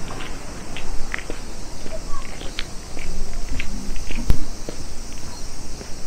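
Footsteps crunching and clicking over the stony ground of a rocky seashore, with a steady low rumble underneath. One sharper knock comes a little past the middle.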